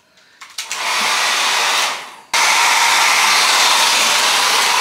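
Handheld hair dryer blowing with a steady hiss. It starts about half a second in, drops away just before the two-second mark, then comes back on abruptly and runs steadily.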